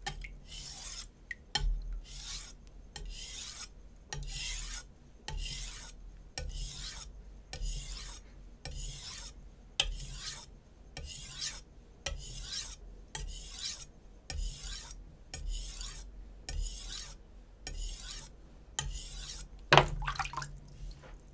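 A Shun Classic chef knife's steel edge stroked repeatedly across a wet 400-grit Naniwa Super Stone, a rasping scrape about once a second. A sharper knock comes near the end.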